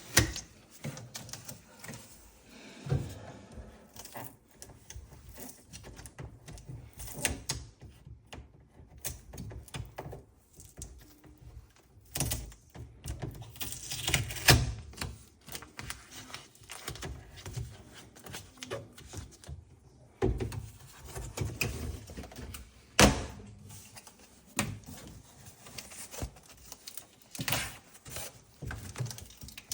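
Irregular handling noises of a fridge being unpacked: scattered clicks and knocks with short stretches of rustling, and sharper knocks about a second in and near 23 seconds.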